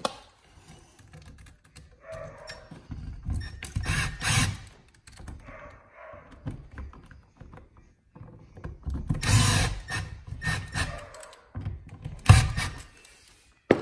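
A wired electrical outlet and its wires being pushed back into the wall box: irregular rustling, clicks and knocks of plastic and metal, with one sharp knock near the end.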